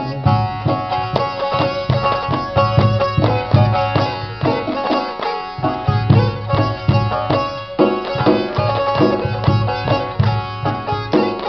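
Instrumental music: a plucked string instrument playing a melody over a steady hand-drum rhythm.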